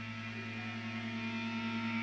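A steady low droning hum with several held higher tones above it, slowly swelling louder toward the end.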